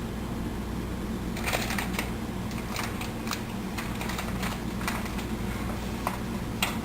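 Mustard and cumin seeds crackling in hot oil, with scattered, irregular small pops over a steady low hum.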